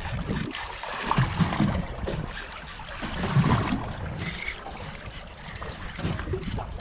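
Water slapping and lapping against the hull of a small open fishing boat, with uneven gusts of wind on the microphone and scattered light knocks.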